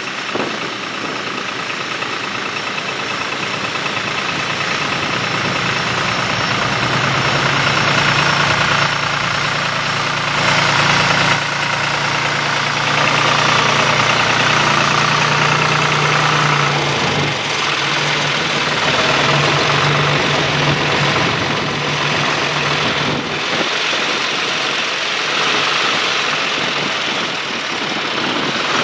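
John Deere utility tractor's engine running steadily under load while pulling a mounted plow through the soil, growing louder over the first several seconds.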